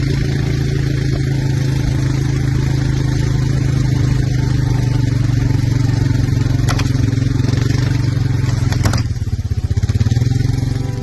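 Small engine of an off-road vehicle towing a roping-dummy sled, running at a steady speed with a low, even hum. Two sharp clicks come about seven and nine seconds in, and the engine note turns pulsing after that.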